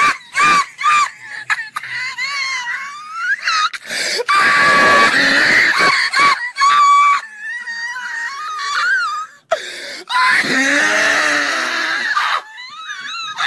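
A man's hysterical laughter at a very high, squealing pitch. It comes in long, wavering peals broken by short gasps.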